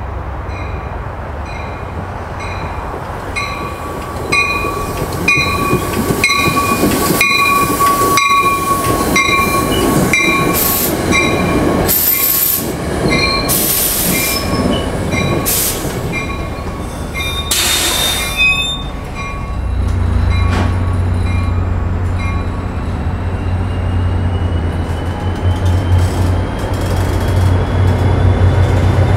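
Diesel push-pull commuter train pulling into a station: a bell rings at an even beat over a high, steady wheel or brake squeal, with a few sharp clanks as the cars roll by. About two-thirds of the way through, the deep rumble of the diesel locomotive's engine comes in and holds to the end.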